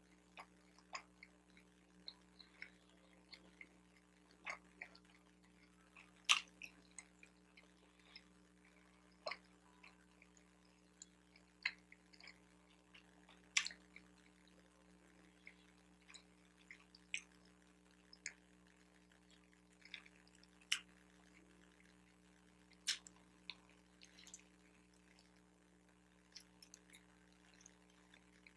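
Close-up chewing of a bacon, egg and cheese everything-bagel sandwich: soft, irregular mouth clicks and smacks, with a few louder ones. A faint steady hum underneath.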